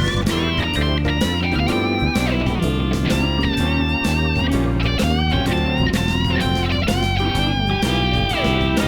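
Background music led by an electric guitar playing a melody with bent notes over a bass line and a steady beat.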